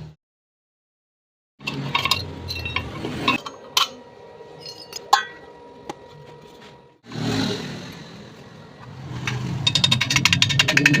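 Hollow iron tube sections clinking and tapping against metal over a low hum, after a second and a half of dead silence. A short burst of hiss comes about seven seconds in, then dense rapid crackling near the end.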